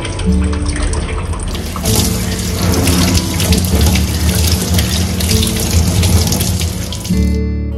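Water running from a tap into a sink, strongest from about a second and a half in and stopping near the end, over background music.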